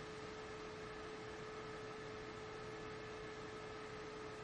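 A steady faint hum held on one pitch over an even hiss: background noise of the recording.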